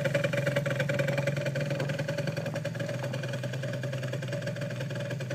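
49cc Yamaha Zuma scooter engine running steadily, a little quieter after the first couple of seconds.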